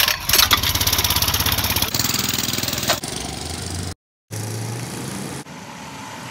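Small single-cylinder mini bike engine running with a fast, even pulse as the bike pulls away. About four seconds in the sound drops out completely for a moment, then the engine comes back steadier and, near the end, fainter.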